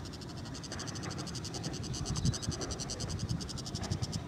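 A high-pitched, rapid, evenly pulsing trill, about ten pulses a second, which the uploader takes for a bird calling in a nearby tree; it stops just before the end. Low rustling comes and goes underneath.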